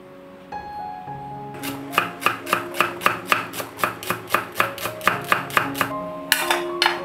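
Knife slicing a green onion on a wooden cutting board: a quick, even run of chops, about four or five a second, that starts a second and a half in and stops near the end. Then there is a short clatter, over soft background music.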